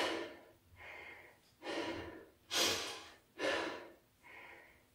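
A man breathing hard and rhythmically from exertion: loud, sharp breaths alternating with quieter ones, roughly one a second.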